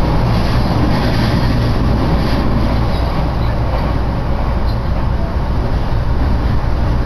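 Steady running noise of a JR Yokohama Line E233-series electric commuter train, heard from inside the carriage while travelling at speed: a continuous low rumble with an even wash of wheel and rail noise above it.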